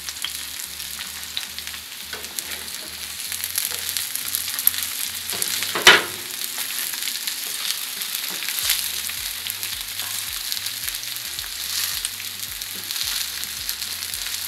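Veggie burger patties sizzling steadily in hot coconut oil in a skillet as they brown, a constant hiss with fine crackling. About six seconds in there is a single sharp clack, the spatula against the pan.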